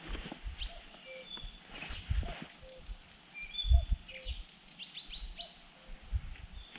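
Small birds chirping with many short, high whistled notes, over irregular low thumps and rumbles, the loudest about halfway through.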